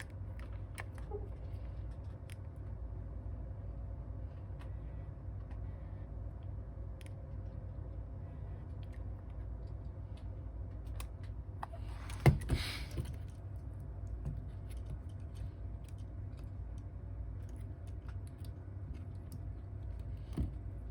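Small scattered clicks and taps of hand tools working on an iPhone, with one sharp louder clack about twelve seconds in and a lighter one near the end, over a steady low hum.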